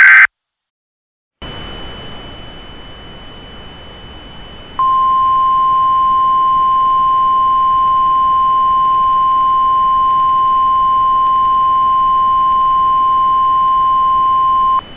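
Emergency Alert System attention signal: after a moment of silence a hiss with a faint steady high whistle comes in. About five seconds in, a single steady 1050 Hz alert tone sounds for about ten seconds and cuts off, the Weather Radio-style attention tone that comes before the spoken alert.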